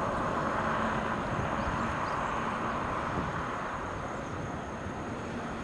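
Distant rumble and hiss of an approaching JR Freight EF210 electric locomotive and its container wagons, steady and slowly easing off a little.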